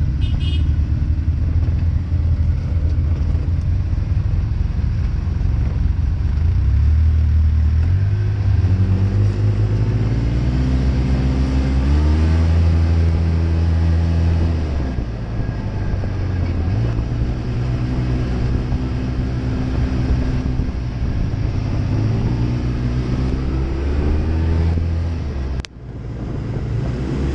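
Side-by-side UTV's engine running as it drives, heard from inside the open cab, its pitch rising as it speeds up and falling back as it slows, several times over. A brief break in the sound comes near the end.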